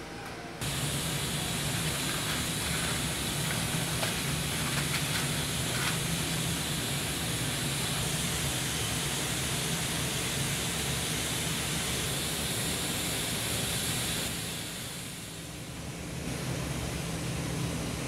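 Steady hiss with a low hum from a running machine. It starts abruptly about half a second in and eases briefly for a second or two near the end.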